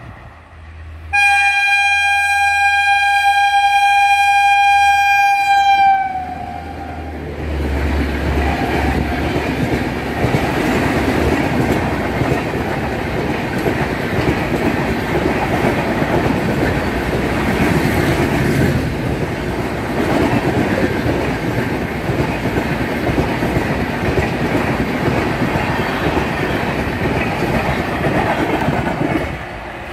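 Indian Railways express train: the locomotive sounds one long horn blast about a second in, held for about five seconds and dipping in pitch as it ends. Then the coaches rush past with steady rolling noise and clickety-clack of the wheels, which drops away near the end.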